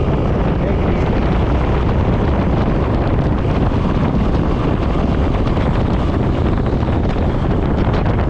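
Steady wind noise buffeting the microphone over the running engine and road noise of a Suzuki M50 V-twin motorcycle being ridden.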